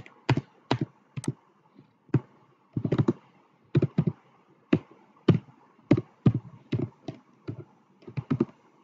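Typing on a computer keyboard: slow, uneven keystrokes, about two a second, with short pauses between bursts.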